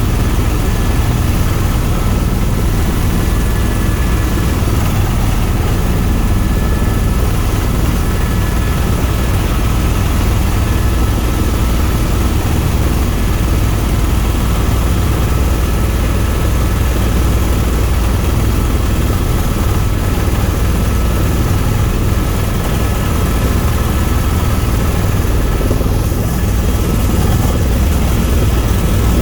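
Tour helicopter in steady flight: a constant low drone of rotor and engine, with thin steady whining tones above it.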